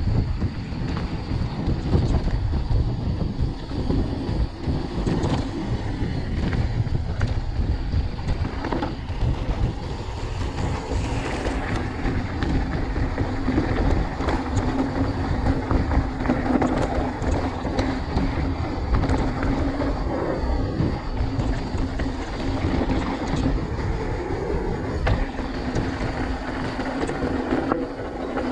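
Mountain bike rolling fast down a gravel track: tyres crunching and rumbling over loose stones, with the frame, chain and suspension rattling continuously.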